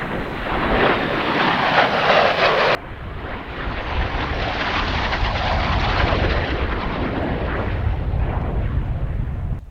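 Loud engine noise of an aircraft flying past. An abrupt cut about three seconds in switches to another stretch of steady aircraft noise, which stops suddenly near the end.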